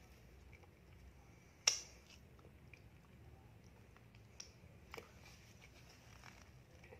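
Close-miked mouth sounds of fingers being licked clean: faint wet smacks, one sharp loud one under two seconds in and two smaller ones around five seconds.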